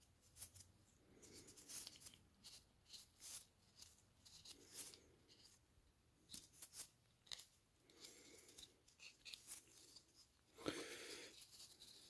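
Faint, scattered clicks and rubs of gloved hands handling a 3D-printed plastic dust hose coupler, with one louder knock near the end.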